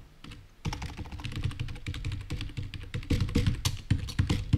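Fast typing on a computer keyboard: a quick run of key clicks that starts about half a second in and gets louder in the second half.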